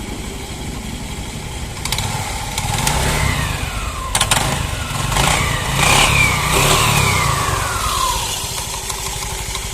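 TVS Jupiter scooter's single-cylinder engine running, blipped up several times from about two seconds in, its pitch sliding back down as each rev dies away, with a sharp click a little after four seconds. It runs without the earlier chirp, the clutch pulley having been cleaned and refitted.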